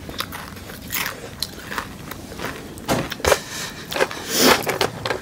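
Eating noises close to the microphone: biting and chewing with the crinkle of a plastic snack wrapper, a run of short irregular clicks and crackles.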